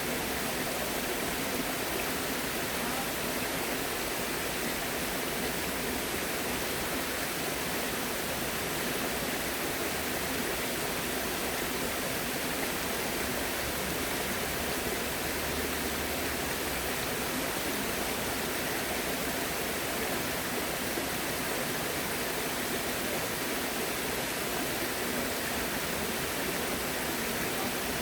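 Steady rush of flowing water, an even unbroken hiss like a stream or small waterfall.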